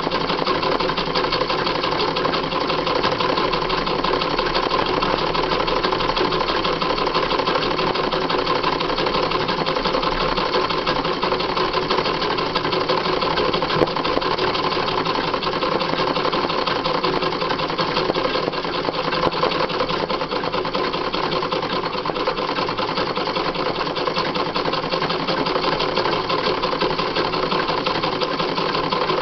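Sewing machine running steadily at speed, its needle stitching rapidly through fabric held in a hoop for free-motion embroidery.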